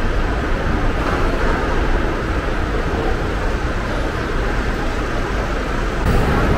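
Steady city street ambience dominated by a continuous low rumble of road traffic.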